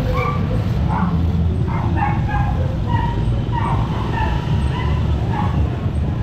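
A dog barking repeatedly, short barks about twice a second, over the steady low rumble of a motorcycle tricycle's engine.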